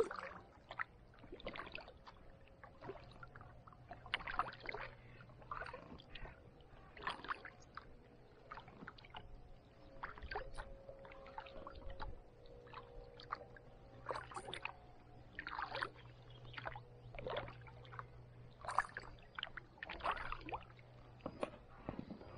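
Kayak paddle blades dipping into calm water and lifting out with splashes and drips, a stroke every second or two.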